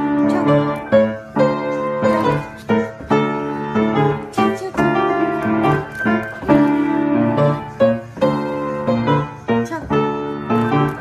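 Piano being played: a tune of struck notes over held chords, with new notes coming every fraction of a second.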